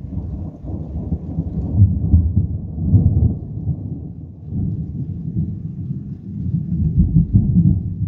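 A long, deep rolling rumble of thunder that swells twice, about two to three seconds in and again near the end, and begins to die away as it ends.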